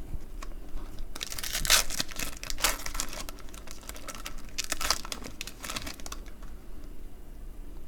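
Foil wrapper of a trading-card pack crinkling and tearing as it is ripped open, in several bursts, dying down near the end.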